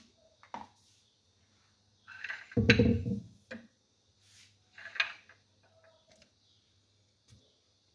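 Blender jar being handled and set down: two short spells of knocking and clatter, the louder one about two to three seconds in and another about five seconds in, then a few light clicks. No motor running.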